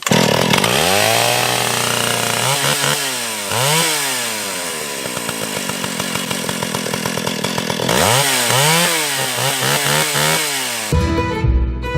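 Antique Stihl two-stroke chainsaw running loud, its engine speed rising and falling several times and held high in between. About a second before the end it cuts off abruptly into bluegrass fiddle music.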